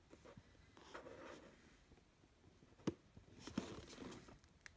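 Faint handling of a cardboard rifle-scope box: light rustling and scraping of the box in the hands, with one sharp tap a little under three seconds in.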